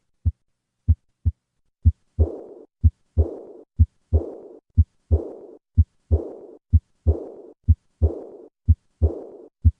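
Heart sounds of aortic regurgitation with the patient at rest, about one beat a second. The first two beats are plain lub-dub. From about two seconds in, a fading diastolic murmur follows each second heart sound, the decrescendo murmur of aortic regurgitation.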